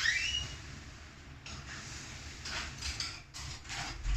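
A pet bird gives a short rising whistled chirp, followed by a few fainter short calls.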